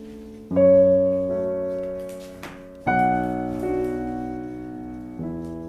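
Background music: slow piano chords, a new chord struck about every two and a half seconds and left to ring and fade.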